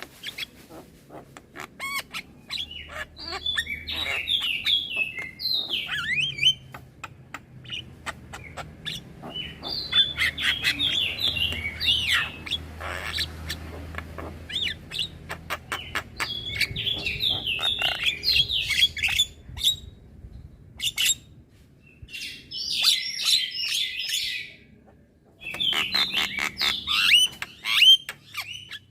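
Young Javan myna chattering: phrases of rapid notes a few seconds long, several times over, with sharp clicks between them.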